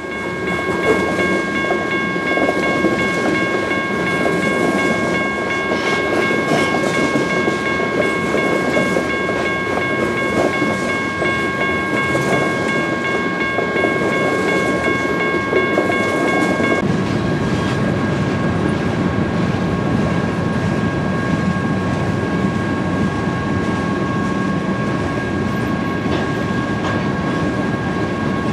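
Union Pacific freight train rolling past, a loud steady rumble of wheels on rail with a sustained high metallic squeal held over it. About two-thirds of the way through the sound changes abruptly and the squeal becomes weaker.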